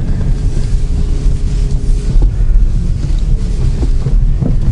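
Low, steady rumble of a car's engine and tyres heard inside the cabin as it rolls slowly forward, with a faint steady hum and a couple of small knocks.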